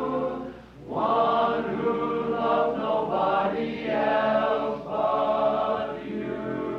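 Men's chorus singing together in harmony, with a brief break just under a second in before the voices come back in fuller.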